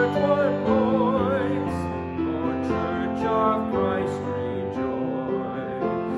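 A hymn with held chords and a singing voice, its melody wavering with vibrato.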